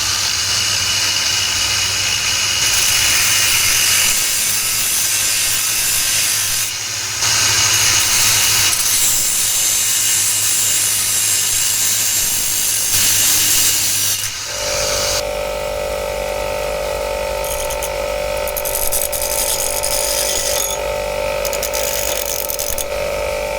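A power tool cutting through a steel drill bit gives a loud, harsh grinding hiss for about fourteen seconds. Then the sound changes to a steadier pitched whine with a hum.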